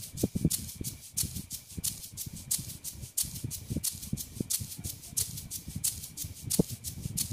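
A steady shaker-like beat, short hissy strokes about three a second, with low rustling and bumps from handling underneath.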